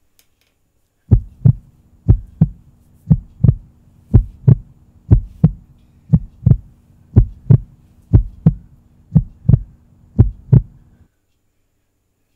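Heartbeat sound effect: ten slow, even double thumps, lub-dub, about one a second, over a steady low hum. It starts about a second in and stops about a second before the end.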